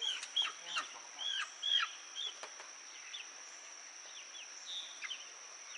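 Cornish cross meat chickens peeping while being caught and crowded into a cage: short high-pitched calls, many in the first two seconds, then fewer and fainter.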